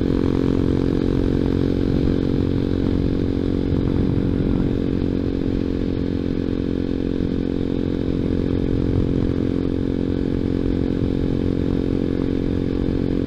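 Single-cylinder four-stroke engine of a small Grom-style motorcycle with a Zongshen ZS190 engine, running steadily at cruising speed.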